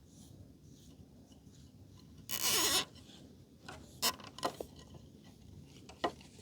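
A plastic zip tie pulled tight through its ratchet head in one quick zipping pull a little over two seconds in, followed by a few light clicks and taps.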